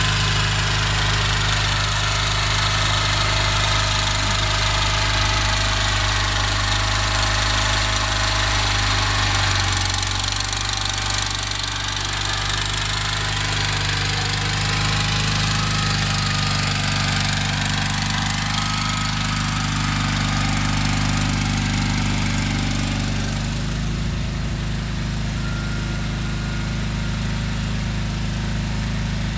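Gravely 20-G Pro garden tractor's engine running steadily under load while plowing snow, its note shifting about ten seconds in and again near the end.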